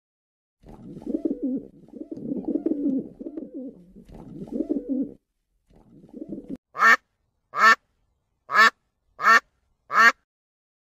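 Rock pigeons cooing low and throatily for several seconds, then a mallard quacking five times in a steady series, the quacks much louder than the coos.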